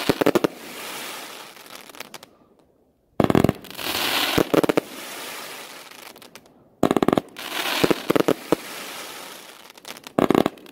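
Aerial fireworks bursting: clusters of sharp bangs about every three to four seconds, each followed by a fading crackle.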